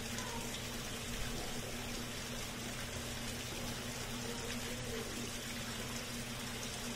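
Steady rush of running water at a fish pool, over a constant low machine hum.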